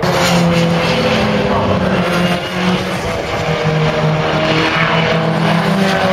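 Racing car engines running on the circuit: several loud engine notes overlapping and holding a fairly steady pitch.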